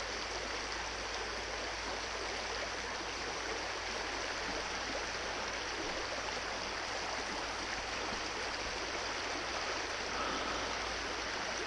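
Shallow creek rushing over rocks and limestone boulders through a riffle, a steady, even rush of water.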